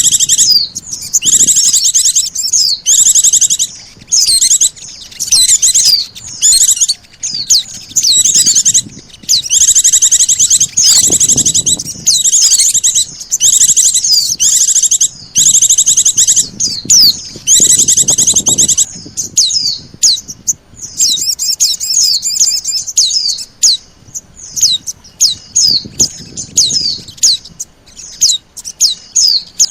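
Bird-lure recording of white-eye (pleci) and little spiderhunter (sogok ontong) calls: loud, rapid high trills in bursts of about a second, repeated with short gaps, then a run of quick separate chirps in the last third.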